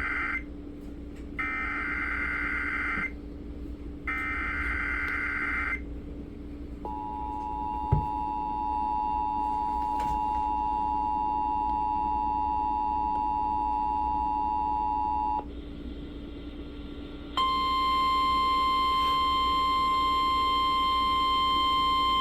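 Emergency Alert System activation over FM radio: three short buzzy bursts of SAME header data, then the harsh two-tone EAS attention signal held for about eight seconds. After a brief pause the single steady NOAA Weather Radio warning alarm tone starts, signalling a severe thunderstorm warning.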